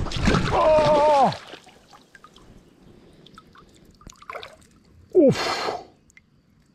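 A man's long, loud vocal exhale, then faint scattered drips and small splashes of water, and a short breathy 'oh, ouf' about five seconds in.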